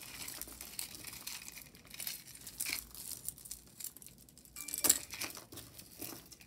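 Plastic bag crinkling and rustling as jewelry is handled, with light clinks of metal pieces against each other and a sharper click about five seconds in.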